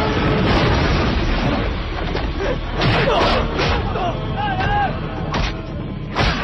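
Action-film fight soundtrack: music and shouting voices over a dense low rumble, with several sharp hits. The last and loudest, a punch landing, comes near the end.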